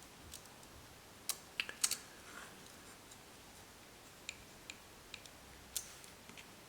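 Small sharp clicks and taps of a screwdriver and small screws being handled against a folding knife while its pocket clip is fitted: three quick clicks about a second and a half in, then scattered fainter ticks.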